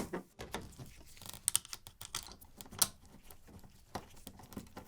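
Irregular light clicks and taps as the air filter door is fitted back onto an Enertech heat pump cabinet and its thumb screws are put back in, with a few sharper clicks about a second and a half, three seconds and four seconds in.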